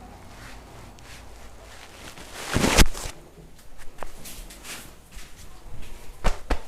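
Massage sounds of hands working on skin: a low background of rubbing, one louder rub or slap of about a third of a second just under three seconds in, and three sharp taps or claps, one about four seconds in and two close together near the end.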